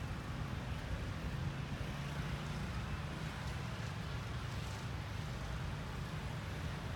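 Steady low rumble of distant vehicle traffic, with no distinct events.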